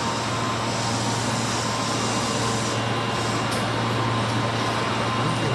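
Subway train standing at the platform, giving a steady low hum from its onboard equipment and air conditioning, with a faint thin tone above it.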